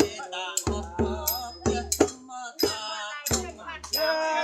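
Folk music for a rueam trut Songkran procession: a drum beating a steady rhythm with rattle-like percussion, and voices singing over it.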